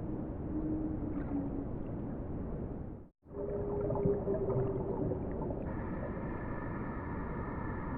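Whale calls recorded underwater: long low moaning tones, some falling slightly in pitch, over a steady hiss of ocean noise. The sound cuts out for a moment about three seconds in. In the second half a higher, steadier set of tones joins the moans.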